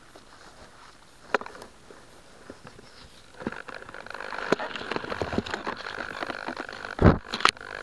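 Dry grass and stalks rustling and crackling right against the crashed model plane's onboard camera, growing denser from about three and a half seconds in as the plane is handled and lifted out of the grass. There are sharp clicks throughout, and a loud heavy knock near the end.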